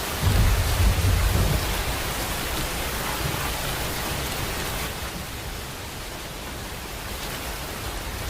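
Steady rain, with a low rumble of thunder lasting about a second and a half at the start.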